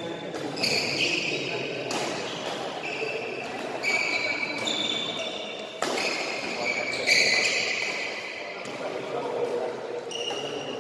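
Badminton doubles rally on an indoor court: sport shoes squeaking on the court floor again and again, with sharp racket strikes on the shuttlecock about two seconds in and again near six seconds in.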